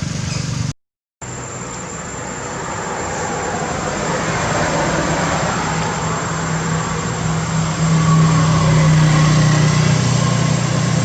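A motor vehicle's engine running, growing louder over several seconds, with a steady low hum in the second half.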